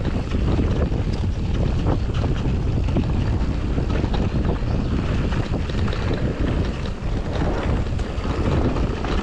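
Wind buffeting a GoPro microphone on a mountain bike descending a rough trail, with the tyres rolling over dirt and rock and many small knocks and rattles from the bike. The noise is steady and heaviest in the low range.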